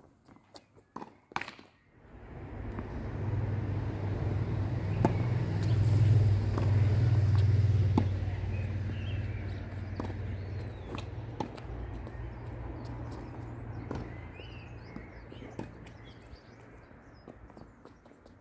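A low engine rumble swells up about two seconds in, is loudest a few seconds later, then slowly fades, as of a vehicle passing. Over it come a handful of sharp pops from tennis balls struck by rackets and bouncing during a doubles rally.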